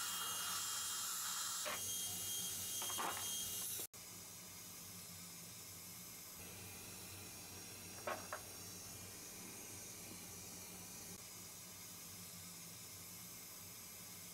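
High-speed dental handpiece with a diamond bur running, a steady high whine over hiss, trimming a provisional crown. It cuts off abruptly about four seconds in, leaving a fainter steady hiss with one brief sound near the middle.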